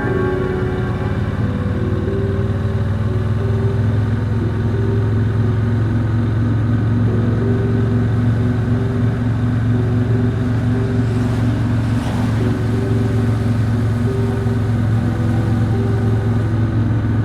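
Triumph Speedmaster's 1200 cc parallel-twin engine running at a steady cruise, a constant low drone under held music notes that step from pitch to pitch.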